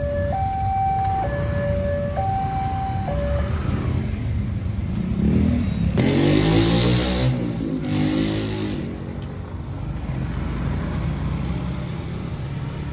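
Railway level-crossing alarm sounding a two-tone signal, alternating between a lower and a higher pitch each held just under a second, which stops about three seconds in. Then road vehicles pass by loudly, engines rising and falling, about six to nine seconds in.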